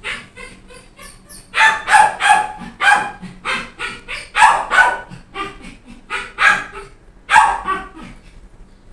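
A dog barking repeatedly in short, high-pitched yaps, about two a second, stopping near the end.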